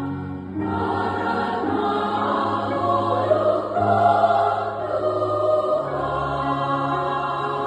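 Women's church choir singing a hymn in Batak, many voices holding sustained notes together with instrumental accompaniment.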